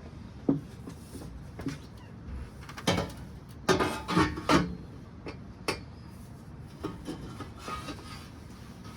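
Stainless-steel long-tube exhaust header clanking and knocking against the car's frame and engine-bay parts as it is worked into place, in scattered metallic hits with a quick flurry of them in the middle.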